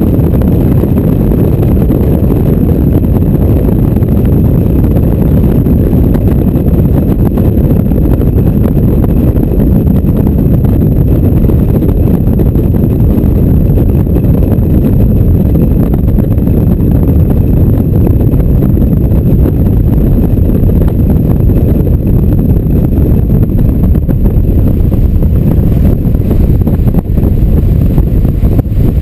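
Loud, steady wind buffeting and road and engine noise in an open-top Mazda MX-5 driven at speed, with the sound concentrated low and easing slightly near the end.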